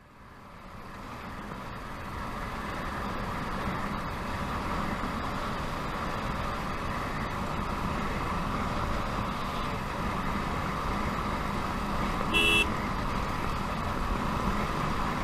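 Motorcycle on the move at road speed: steady wind and engine noise on an action camera's microphone, fading in at the start. A vehicle horn beeps once, briefly, about twelve seconds in.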